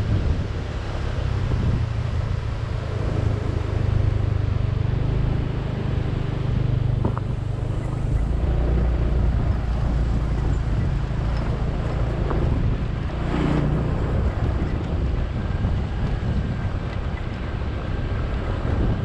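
Wind buffeting the microphone over the steady low hum of a motorbike engine, riding along at an even pace.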